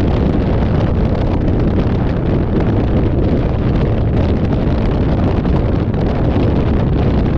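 Steady wind buffeting the microphone over the low rumble of a moving vehicle on the road.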